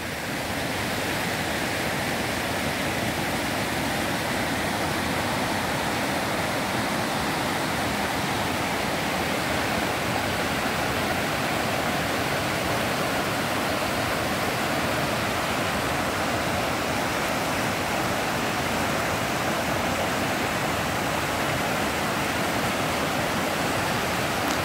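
Steady rushing of a swollen, muddy river pouring through rapids over rocks after a storm.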